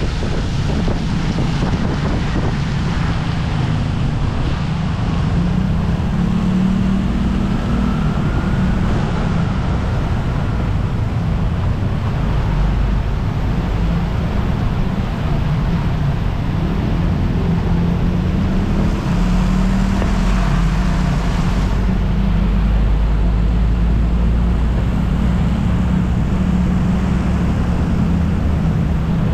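Ride noise from a scooter on a wet road: wind buffeting the microphone over the scooter's engine running steadily and tyres on wet tarmac. A deeper rumble joins from about twelve seconds in, with a heavy fuel tanker truck alongside.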